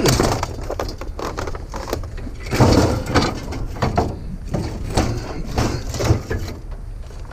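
Scrap items being handled and shoved into a truck bed: an irregular run of clunks, knocks and scraping, loudest a few seconds in.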